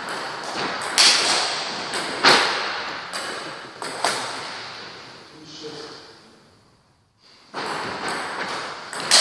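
Table tennis rally: a celluloid ball clicking off rubber-faced bats and the tabletop in quick, irregular strikes, each hit echoing in a large hall. The play stops about four seconds in, and a new rally starts with more sharp clicks near the end.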